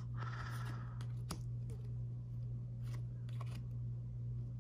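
Glossy trading cards being slid and flipped from the back of a stack to the front in the hands: a short rustle near the start, then a few light clicks and scrapes of card edges, over a steady low hum.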